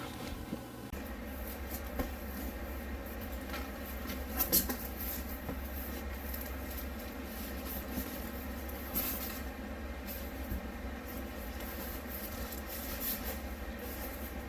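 Quiet handling noises, light rustles and soft knocks, such as packaging being handled, over a steady low hum that comes in about a second in.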